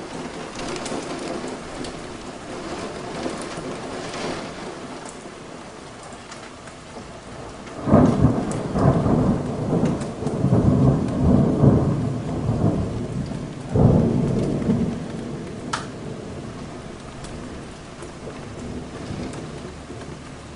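Heavy thunderstorm rain pouring steadily. About eight seconds in a close thunderclap breaks out and rumbles for several seconds, then a second crack of thunder comes near the middle and fades back into the rain.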